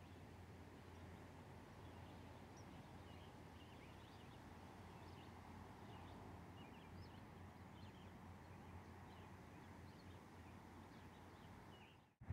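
Near-silent outdoor ambience: faint, scattered high chirps of distant small birds over a low steady hum. The sound drops out briefly near the end.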